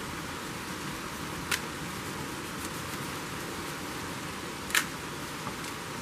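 Heavy rain pouring outside, heard through an open window as a steady hiss. Two sharp clicks break it, about a second and a half in and, louder, near the end.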